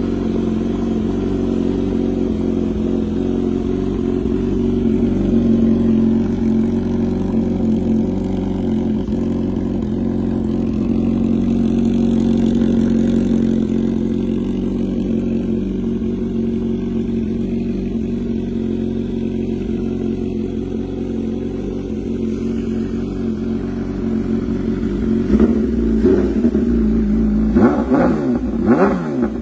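MV Agusta Brutale 1000 RR's inline-four engine idling steadily through an Arrow aftermarket exhaust, then revved in a few quick throttle blips near the end.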